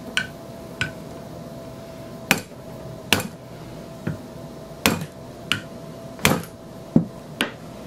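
Light hammer taps on a metal bar, about nine sharp metallic strikes spaced unevenly, some in quick pairs. They drive the Blackfeather operating rod guide along the rifle barrel to bring it into alignment.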